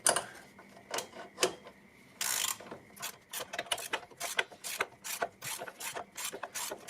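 Socket ratchet clicking as it backs off a 15 mm lower control arm nut: a few separate clicks and a short scrape at first, then a steady run of about three to four clicks a second.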